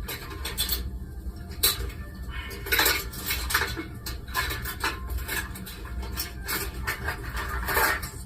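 Kitchen utensils and dishes being handled: a run of irregular clinks, knocks and short scrapes on the counter.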